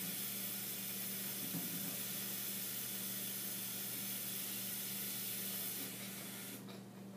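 Kitchen tap running a steady stream of cold water, shut off about six and a half seconds in.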